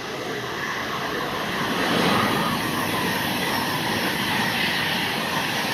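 A train running through the station on the rails, getting louder over the first two seconds, then running on steadily.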